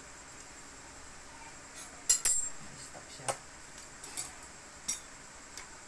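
Sharp metallic clinks and taps of a motorcycle's front disc brake caliper and bracket being handled and fitted onto the fork beside the brake disc. The loudest pair comes about two seconds in, followed by single clinks roughly a second apart.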